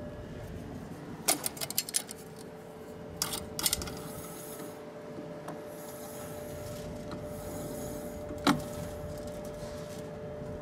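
Dalton universal mixer-stirrer running with a steady two-tone motor hum. A quick run of sharp metallic clicks comes about a second in, another a little after three seconds, and one louder knock about eight and a half seconds in.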